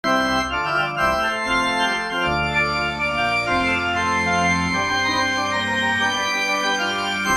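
Electric organ playing sustained chords over a moving bass line, with its chorus effect on setting 3. It starts suddenly out of silence.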